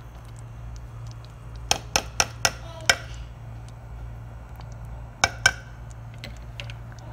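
A metal spoon clinking against the cooking pot: five quick clinks about two seconds in, then two more about five seconds in, each with a short ring, over a steady low hum.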